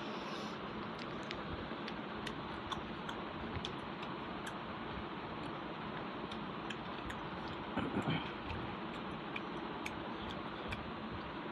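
Eating by hand, picked up close on a clip-on microphone: soft, irregular clicks of chewing and lip smacks, and fingers working rice and fish curry in a steel bowl, over a steady hiss. A louder, muffled sound comes about eight seconds in.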